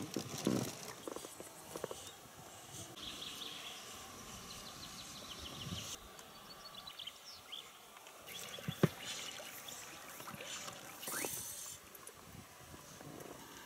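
Quiet outdoor ambience in an inflatable boat on a river. There are light knocks and handling noises of fishing gear near the start, and quick runs of high chirping calls in the middle. One sharp knock comes about nine seconds in.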